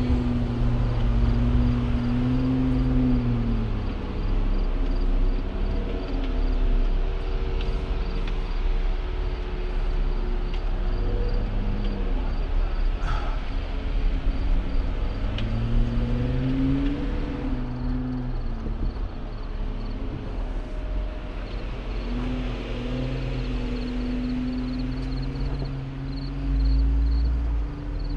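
Jeep Wrangler JL Rubicon engine running at low revs, its pitch rising and falling several times with the throttle while it crawls over rock, over a steady low rumble.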